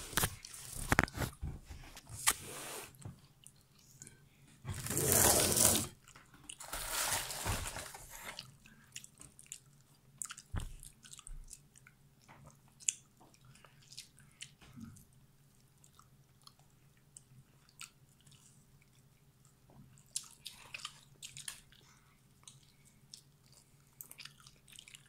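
Crunching and chewing of a crispy breaded fried chicken wing close to the microphone. The loudest crunching comes in the first eight seconds, with a long loud burst about five seconds in, then quieter chewing and scattered small clicks.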